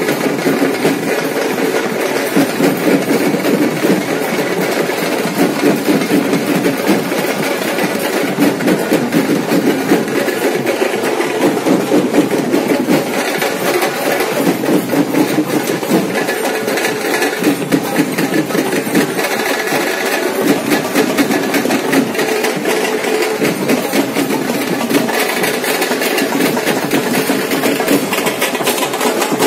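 Folk troupe's drums and cymbals playing a fast, continuous beat of dense, rapid strikes.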